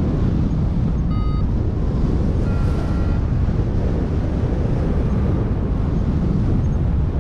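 Steady wind rushing over the microphone of a paraglider in flight. Two short beeps from a flight variometer sound about a second in and again near three seconds, the second slightly higher; beeping like this signals the glider is climbing in lift.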